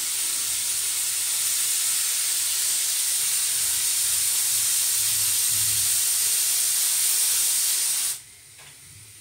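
Steady, loud hiss that cuts off suddenly about eight seconds in.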